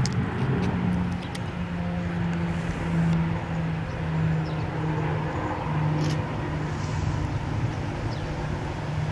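Airbus A340-300's four CFM56 turbofans heard at a distance as the airliner rolls out on the runway after landing: a steady jet rumble with a low hum that wavers in level.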